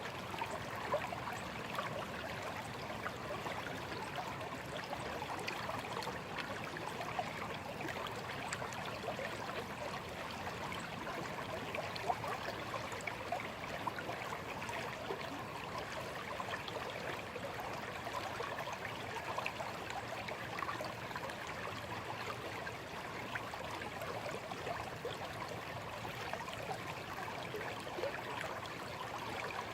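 Shallow stream flowing steadily, a continuous babble of water over stones with fine trickling and splashing.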